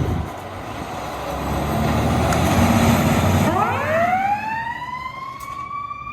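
Fire truck pulling out with loud engine and road noise, then about halfway through its siren starts winding up, rising steadily in pitch and levelling into a high wail.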